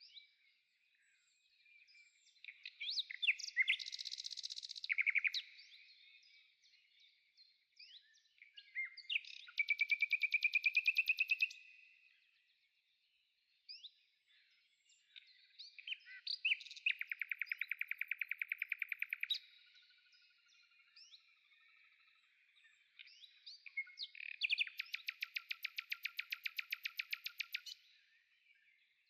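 Songbirds chirping, with four rapid pulsing trills of about two to three seconds each, repeating every six to seven seconds.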